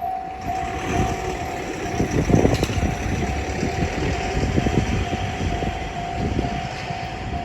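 Japanese railway level crossing's electronic warning bell ringing: a rapid, evenly repeated ding at one pitch. Under it runs the heavy rumble and clatter of a train passing over the crossing.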